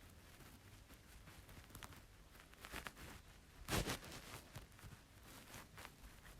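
Faint scraping and light tapping of a utensil mixing chopped dates into cake batter in a bowl, with one louder knock a little under four seconds in.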